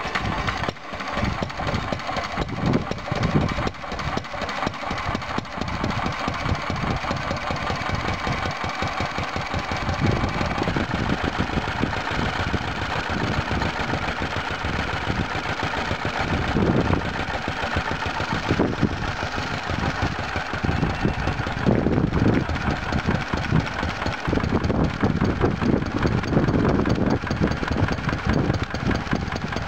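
Homemade single stationary engine, cast to the pattern of a 2 hp Ronaldson and Tippett N type, running steadily under the load of a washing-machine-motor alternator that is lighting a bank of bulbs.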